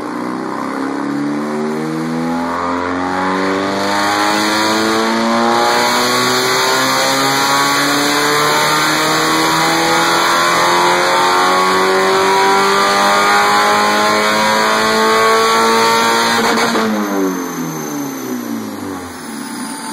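First-generation Mazda Miata race car's engine making a pull on a chassis dyno. The revs climb slowly and steadily for about seventeen seconds, then drop quickly as the throttle is closed and the engine winds down.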